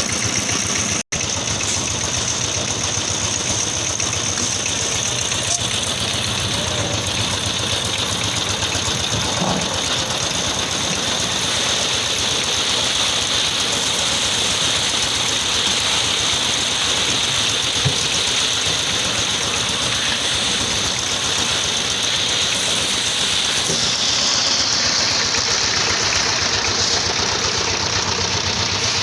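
Concrete pump's engine running steadily, with a high whine over it that shifts in pitch about 24 seconds in.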